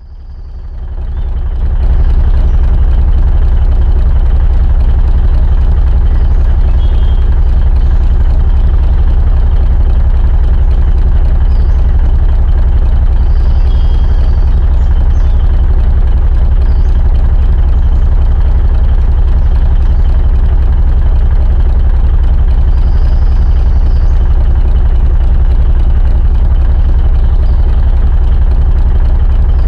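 Large diesel truck engine idling steadily, fading in over the first two seconds.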